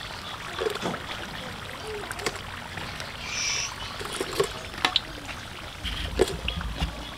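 Spring rolls deep-frying in a wok of hot oil: a steady sizzle and bubbling, the rolls browned and cooked through. A few sharp clicks come from metal tongs against the wok and the plastic colander as rolls are lifted out.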